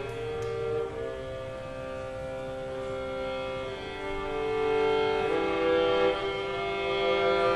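Solo viola bowing slow, held double stops, two notes sounding together and changing every second or two, growing louder about halfway through.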